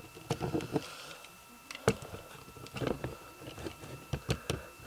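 Light clicks and taps of a plastic and die-cast G1 Hot Rod Transformers figure being handled and its parts adjusted, with a sharper click about two seconds in and two more near the end.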